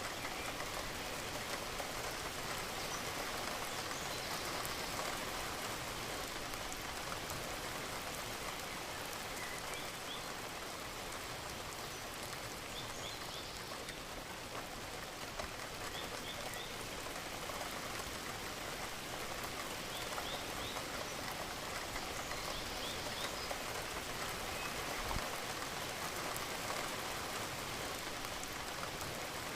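Steady rain falling, an even dense patter of raindrops on surfaces, with a few faint short high chirps now and then.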